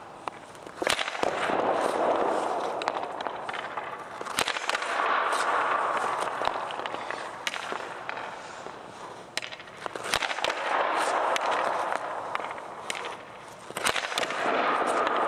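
Hockey shooting drill on an indoor rink: sharp cracks of the stick striking the puck and the puck hitting the goalie's pads, roughly one shot every four seconds, with swells of skate blades scraping the ice between shots.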